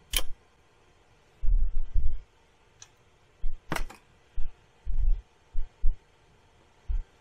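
Irregular dull low thumps and knocks with two sharp metallic clicks, one right at the start and one a little over halfway through, from the steel boom arm of a Bruno scooter lift being handled.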